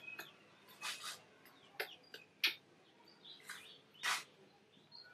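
Baby macaque suckling milk from a plastic feeding bottle: a string of short, wet sucking smacks, about six across a few seconds. Faint bird chirps sound behind them.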